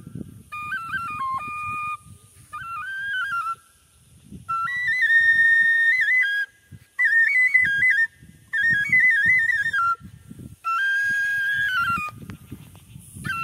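Bansuri flute playing a slow melody in short phrases with brief pauses between them, mixing held notes with quick ornamental turns.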